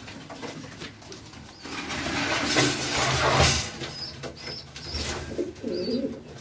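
Domestic fancy pigeons cooing in a loft, with a louder rustling burst from about two to three and a half seconds in.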